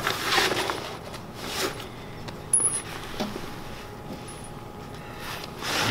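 Light handling noises from hands working at the wooden building form: a brief rustle at the start, then a few small clicks and taps, one with a short high ring about two and a half seconds in, and another rustle near the end.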